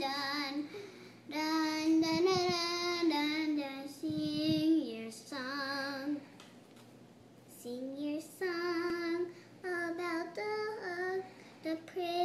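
A young girl singing a made-up song on her own, without accompaniment, in long held notes with a wavering pitch, phrase after phrase with short breaths between; she stops for about a second and a half past the middle before going on.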